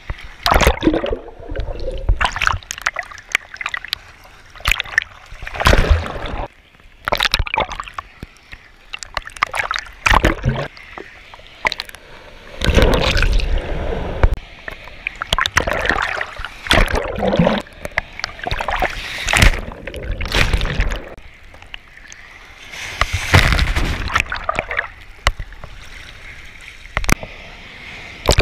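Seawater sloshing and splashing against a waterproof action camera held at the waterline in the surf, in irregular loud gushes as waves and whitewash wash over it and it dips under the surface.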